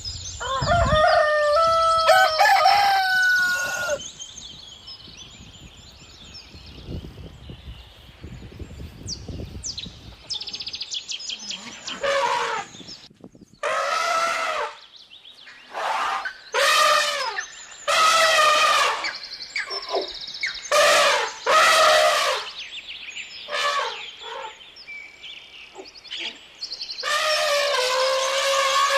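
Chickens calling and a rooster crowing, a long call at the start and then a quick series of shorter calls, with small birds chirping faintly behind.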